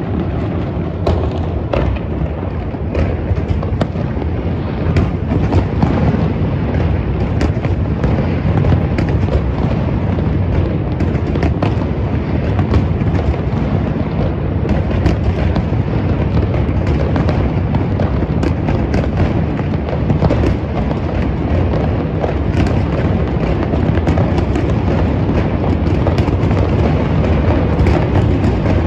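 Dense, continuous fireworks: a steady rumble of overlapping booms with many sharp pops and crackles throughout, typical of mass New Year's Eve fireworks.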